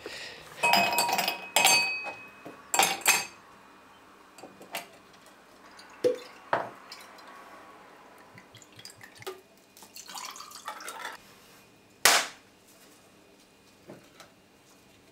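Ice cubes clinking in a stemmed wine glass, with the glass ringing through a cluster of clinks in the first few seconds. Then quieter handling and small knocks as a drink is poured over the ice, and one sharp clink near the end.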